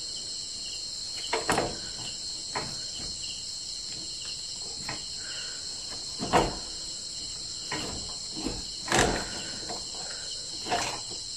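A steady chorus of crickets, with scattered clicks and knocks of metal parts being handled at a Honda Wave 100's rear wheel hub as its brake is refitted. The loudest knocks come about six and nine seconds in.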